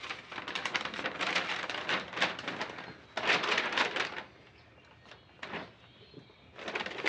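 A large paper wiring schematic being unfolded and handled, rustling and crackling for about four seconds. It goes quiet for a couple of seconds, then rustles again near the end as the sheet is laid down.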